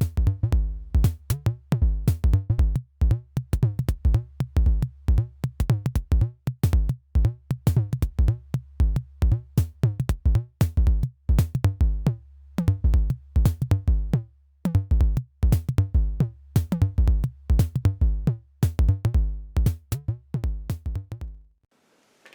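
Electronic background music with a busy drum-machine beat over a steady bass, cutting off suddenly near the end.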